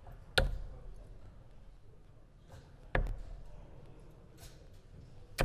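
Steel-tip darts striking a Winmau Blade 6 bristle dartboard: three sharp thuds about two and a half seconds apart, the last at the very end.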